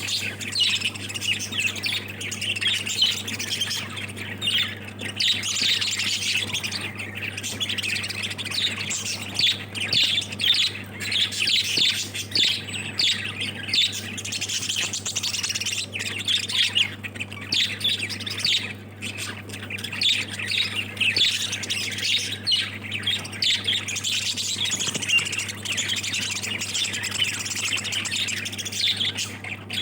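A group of pet lovebirds chattering without pause, a dense mix of sharp chirps and squawks, over a steady low hum.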